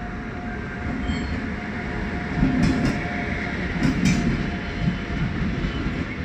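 WAP-7 electric locomotive hauling a passenger train arriving and passing close by, its wheel and rail rumble growing louder, with sharp clicks a little over two seconds in and again around four seconds in.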